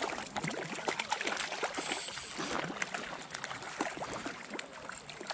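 Pond water splashing and trickling in many small, irregular splashes.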